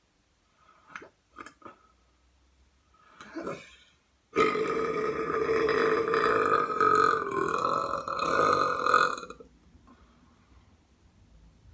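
A long, loud burp lasting about five seconds, starting about four seconds in, holding a fairly even pitch and cutting off suddenly. A few short clicks and a brief sound come before it.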